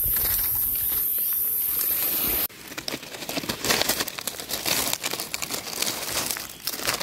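A steady high-pitched hiss that cuts off suddenly about two and a half seconds in, followed by dry leaf litter crackling and rustling and a knife scraping as hands pick and trim the stems of red-capped bolete mushrooms.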